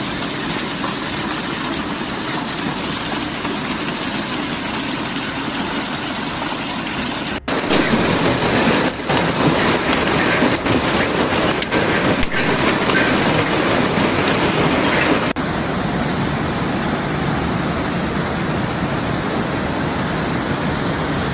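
Hailstorm: a dense, steady hiss of hailstones falling on a street and parked cars. It changes abruptly about seven seconds in to a louder stretch with sharp separate strikes, then drops back to a steadier hiss about fifteen seconds in.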